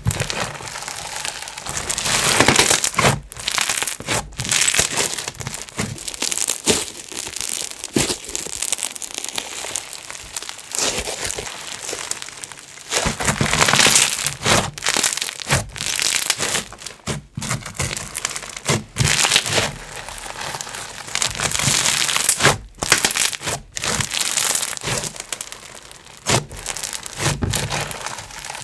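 Crackly Bingsu bead slime being squeezed and stretched by hand, giving a dense run of crackles and crunches with brief pauses between squeezes.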